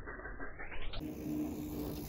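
Mountain bike coasting on a packed-dirt track: tyres rolling on the dirt, and from about halfway through a steady buzz typical of a rear freehub clicking while the rider is not pedalling.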